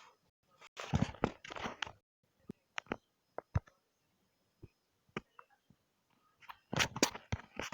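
Close-up handling noise: two bursts of rustling, with single sharp clicks and taps spaced out between them.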